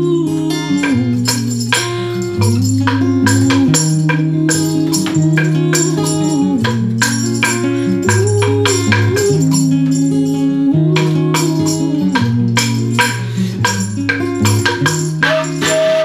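Devil stick percussion: quick, sharp clacks as the hand sticks strike the centre stick in rhythm, over music with a melody of held notes that slide between pitches.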